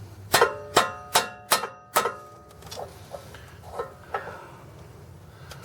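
Hammer striking a metal punch five times in quick succession, each blow ringing with a metallic tone, then several lighter taps, driving a pin out.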